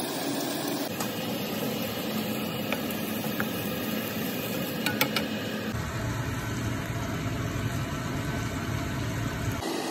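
Shrimp and chopped garlic frying in a pan, a steady sizzle over a constant low hum. A few light knocks of a wooden spatula against the pan come about five seconds in, and the low rumble is stronger for the last few seconds.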